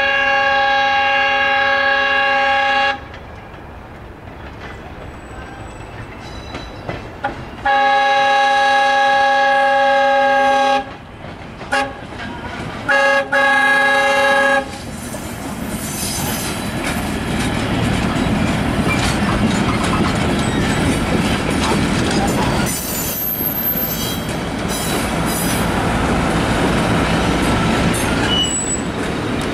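Train horn on the caboose leading a shoving passenger train, blowing the grade-crossing signal: two long blasts, a short one and a final long one. The train then rolls through the crossing with a steady rumble and clicking of wheels over the rails.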